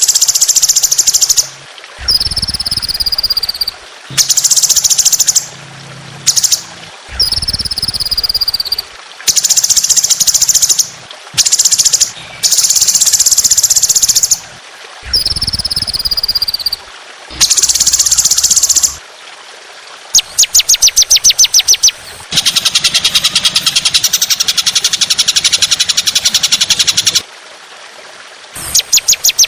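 Recorded songbird song used as a training track for cage birds: short loud phrases that cut in and out abruptly, including several falling whistles. About twenty seconds in comes a fast trill, followed by a long harsh, scratchy burst of song.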